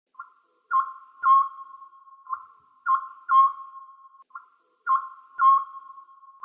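Electronic chime tones on one high pitch, struck in groups of three that repeat about every two seconds, each note ringing on briefly.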